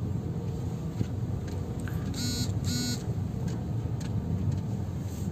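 Cabin of a 2010 Toyota Yaris driving slowly over paving blocks: a steady low rumble of tyres and engine, with no creaking from the door seals, which have just been wiped with engine oil. Two short beeps sound a little past the middle.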